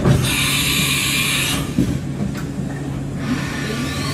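Haas VF-2 CNC vertical mill making a tool change over the machine's steady hum. There is a clunk, then about a second of loud air hiss as the tool is released from the spindle, then a couple of clicks. Near the end the spindle spins up with a rising whine that levels off.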